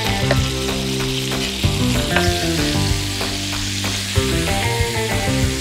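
Chicken breasts sizzling as they sear in hot fat in a frying pan, with occasional sharp knife strokes on a wooden cutting board as an onion is chopped.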